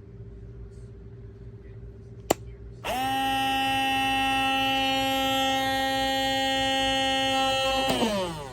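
Cordless electric blade coffee grinder: a click, then its motor starts and runs at a steady, even-pitched hum for about five seconds, and winds down with falling pitch near the end.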